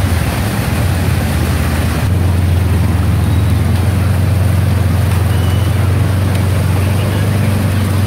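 Motor scooter and car engines running in slow traffic through a flooded street, with water splashing at first. About two seconds in, the sound settles into a steady low engine drone.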